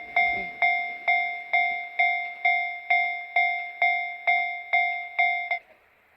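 Railway level crossing warning bell ringing with a steady clang about twice a second, then stopping abruptly near the end.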